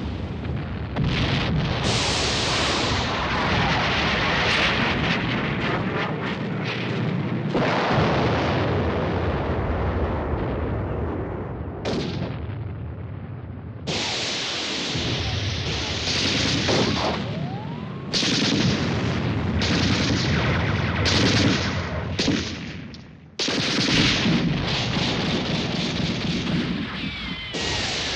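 A loud, dense soundtrack of gunfire and explosions that cuts and changes abruptly several times.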